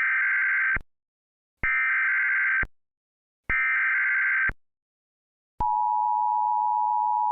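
Emergency Alert System signal: three roughly one-second bursts of buzzing SAME header data tones, then about five and a half seconds in the steady two-note EAS attention tone begins and holds.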